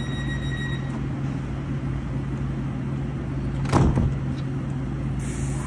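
Los Angeles Metro light-rail train standing at the platform, its onboard equipment humming steadily. A high door-warning tone stops within the first second, about four seconds in the sliding doors close with a loud thump, and a short hiss follows near the end.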